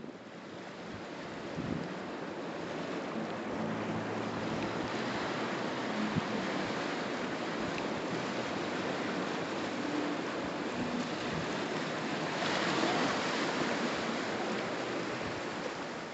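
Surf washing over the rock shelf: a steady rush of waves that swells a little about twelve seconds in, with a faint low hum under it in the middle.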